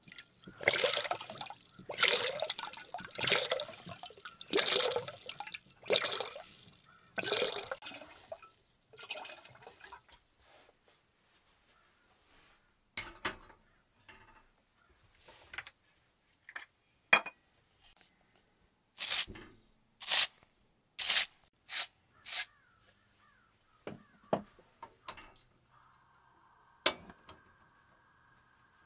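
Water splashing in about six bursts, a second or so apart, then a series of sharp clinks and knocks, like dishes being handled. A faint steady tone starts near the end.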